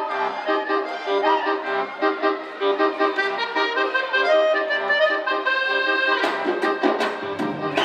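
Telugu film-song medley music played for a dance: a reedy melody over a steady pulsing accompaniment, changing about six seconds in to a section with sharp drum strikes.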